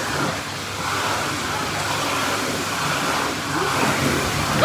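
Steady rush of churning pool water, with faint voices in the background.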